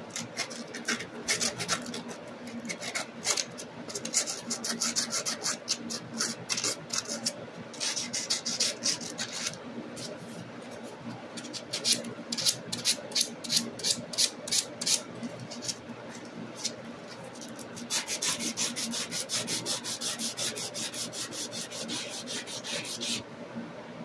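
Sandpaper rubbed by hand, back and forth, over the metal spade terminals of a voltage regulator rectifier to clean them. It comes as rapid scratching strokes, a few a second, in several spells, and stops just before the end.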